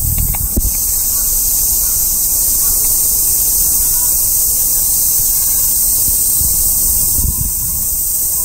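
Loud, steady chorus of cicadas, with gusts of wind rumbling on the microphone now and then.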